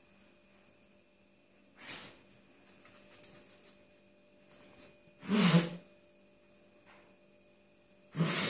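Border Terrier blowing three short, hard breaths out through its nose while nosing at the gap under the kitchen units for a rat's scent. The middle blast, about halfway through, is the loudest.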